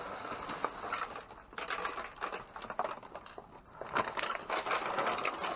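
Discarded trash being rummaged through: an irregular run of rustling and crinkling, with scattered small knocks and clicks.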